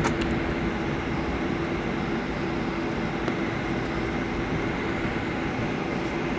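Steady cabin noise inside a Boeing 737-800 on the ground just after landing: engine and airflow rumble with a steady low hum. A couple of faint clicks right at the start.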